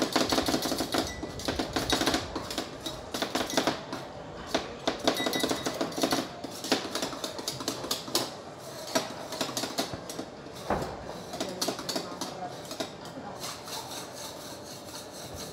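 Two metal spatulas rapidly chopping and tapping on a stainless-steel cold plate, mashing Oreo pieces into rolled ice cream. The clatter is fast and dense for the first half, then becomes sparser and quieter.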